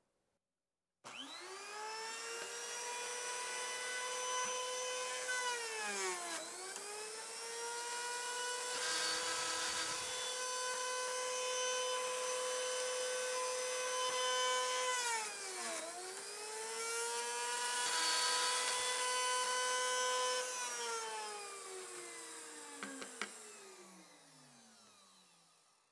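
Castle 110 pocket-cutting machine starting up about a second in and running at a steady whine while cutting two pockets in a board. Twice its pitch dips briefly, with a rasping of wood being cut. Near the end the motor winds down, its pitch falling slowly until it stops.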